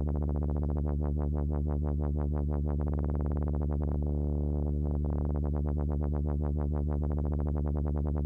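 Sustained low sawtooth bass note from the Vitalium software synthesizer, its filter cutoff swept by a triangle LFO about ten times a second: a fast dubstep-style wobble. Around four seconds in the LFO rate is pushed far faster, into a blurred buzz, then comes back to the ten-a-second wobble.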